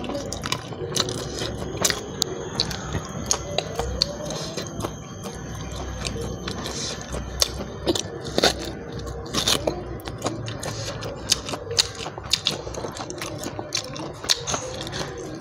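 Close-miked chewing and crunching of duck offal eaten by hand, with many short sharp clicks of teeth and mouth. Some of the offal is tough and hard to bite.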